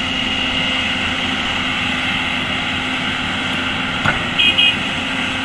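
Hydraulic excavator diesel engines running steadily. A single knock comes about four seconds in, followed by a few short high beeps.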